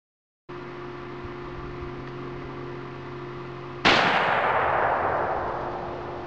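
A single 12-gauge shotgun shot from a Remington 870 pump-action firing a 1 oz rifled slug, about four seconds in. It rings out and fades away over about two seconds. A steady low hum sits under it.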